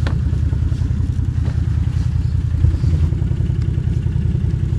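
ATV engine running steadily at low to moderate revs, with a few light clicks and clatter over it.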